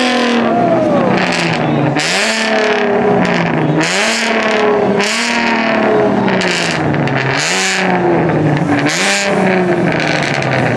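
Car engine revved hard over and over, its pitch jumping up and sliding back down about every one and a half to two seconds, with a burst of hiss at each rev.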